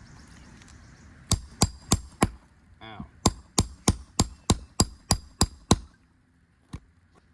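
Roofing hammer striking a steel nail puller to drive it under a shingle nail head: four sharp metallic blows, then after a short 'ow' a run of nine quicker blows at about three a second, and one last tap near the end.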